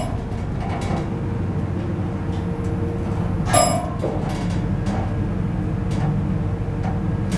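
Dover hydraulic elevator car travelling up, its pump motor humming steadily under a faint constant whine. A single bell-like ding rings about three and a half seconds in.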